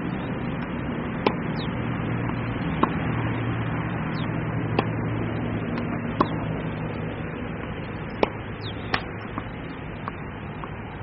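Tennis ball being hit by a racket in practice, a sharp pop every second and a half or so, some smaller ones between them, over a steady low hum.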